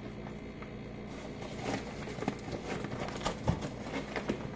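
Kitchen handling sounds of baking ingredients and utensils: scattered light clicks and rustles from about a second and a half in, with a dull knock about three and a half seconds in, over a steady low hum.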